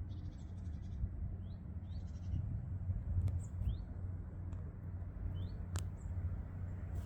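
Small birds calling: four short rising chirps and two quick trills, over a steady low rumble. A single sharp click comes near the end.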